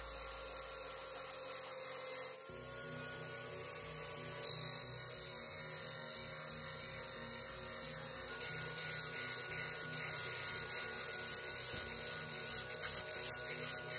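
Motor-driven abrasive disc spinning with a steady hum while a steel drill bit's tip is ground against it to sharpen the cutting edge. A grinding hiss comes in about four and a half seconds in, and irregular scraping contacts follow toward the end.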